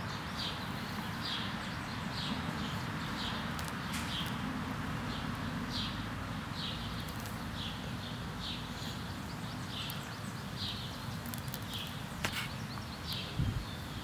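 A short, high chirp repeating about twice a second over a steady low outdoor rumble, with a couple of faint knocks near the end.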